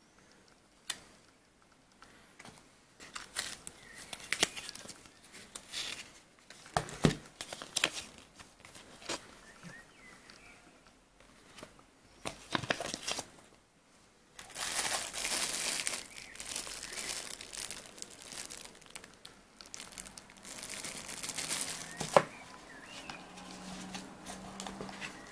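Paper inserts and plastic packaging crinkling and rustling as a box is unpacked, in scattered handling noises at first, then a longer stretch of dense crinkling, with one sharp click near the end.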